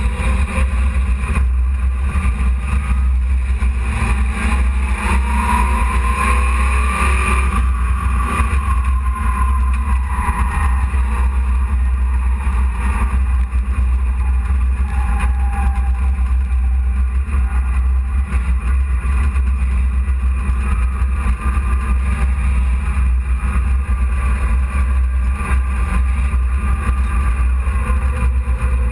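Hobby stock race truck's engine running hard, heard from inside the cab with a heavy low rumble, the engine note rising and falling as the truck goes around the dirt oval.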